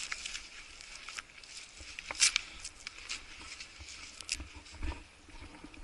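Rustling and scraping of camouflage clothing and gear rubbing against the camera, with scattered sharp clicks. The loudest click comes a little over two seconds in.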